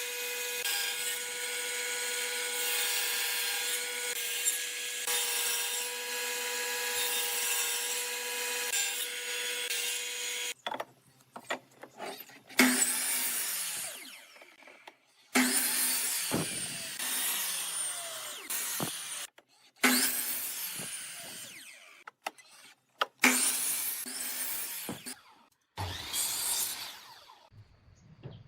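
A power tool working wood, running steadily for about ten seconds with a constant motor whine. After that comes a series of short, abruptly starting passes on wood, several of which fade away, with brief gaps between them.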